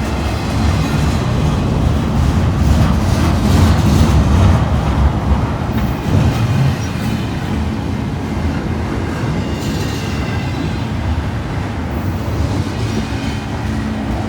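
Freight train rolling past close by: a steady rumble of steel wheels on rail with repeated clatter, loudest a few seconds in.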